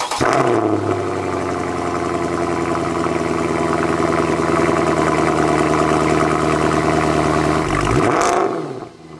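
Mercedes-Benz C63 AMG's naturally aspirated 6.2-litre V8 running at a steady idle just after a cold start, heard from behind its quad exhaust tips through the factory exhaust. About eight and a half seconds in the note shifts briefly and the level drops.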